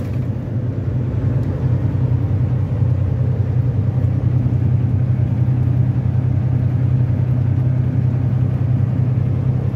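Semi-truck cruising at highway speed, heard from inside the cab: a steady low diesel engine drone with road noise, unchanging throughout.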